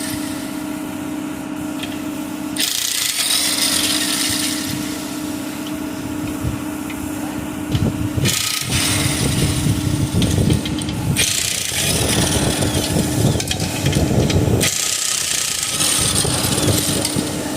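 Workshop tool and machine noise: a steady hum throughout, with spells of rough, hissy scraping that start and stop every few seconds.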